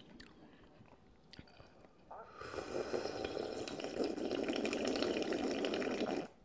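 Chicken noodle soup slurped straight from a bowl: one continuous wet slurp of about four seconds, starting about two seconds in and cutting off suddenly near the end.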